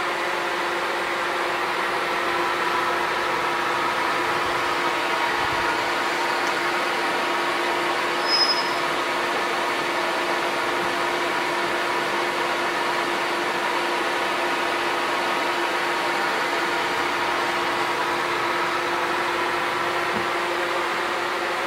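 Electric chainsaw mill running steadily, its 3/8-inch ripping chain on a 20-inch bar cutting along a log under automatic feed. A steady machine hum with a held tone runs throughout.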